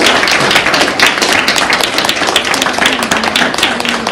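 Audience applauding: dense, steady hand clapping with no break.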